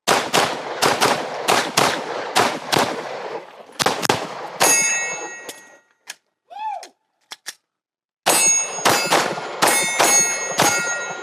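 Handgun shots fired in quick strings on a practical-shooting stage, with steel targets ringing after hits. A first string runs about four and a half seconds, a pause of a few seconds follows, then a second string of shots with more steel ringing.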